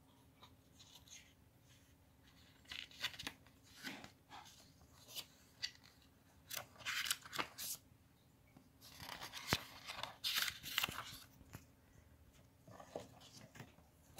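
Paper pages of a small printed manual being handled and flipped, rustling and crackling in irregular bursts, with light taps and scrapes as the cardboard box is handled.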